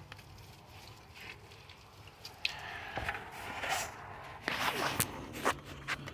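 Handling noise: a string of rustles and scrapes with a few sharp clicks, starting about two seconds in and busiest near the end.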